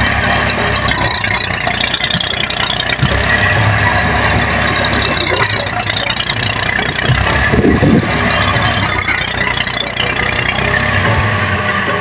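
Massey Ferguson 240 tractor's three-cylinder diesel engine running steadily while driving a front-mounted wheat reaper, swelling louder for a moment about eight seconds in.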